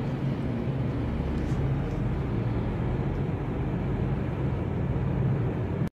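Steady low rumbling background noise with a faint hum, cutting off abruptly near the end.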